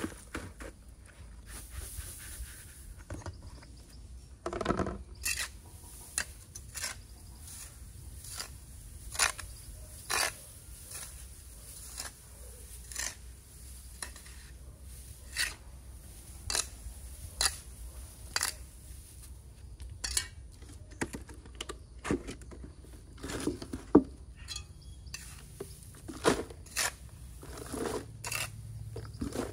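A string of sharp clicks and light knocks, roughly one a second and irregular, with a fuller thud about five seconds in, over a steady low hum and a faint high hiss.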